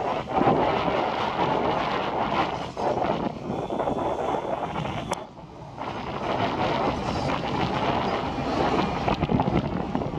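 Strong wind buffeting the microphone in loud, uneven gusts, easing briefly about five seconds in before picking up again.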